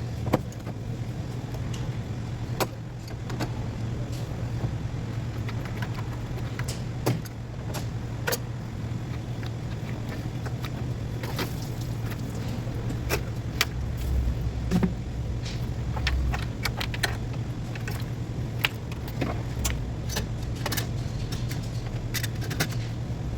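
Irregular metallic clicks and clinks of hand tools and metal parts being handled during engine work, over a steady low hum.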